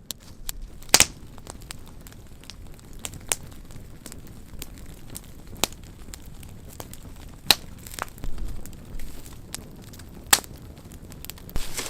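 Wood campfire crackling, with irregular sharp pops over a low steady rustle.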